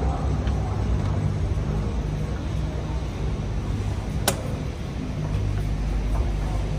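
Steady low rumble of background noise while walking through a station hall, with one sharp click about four seconds in and another at the very end.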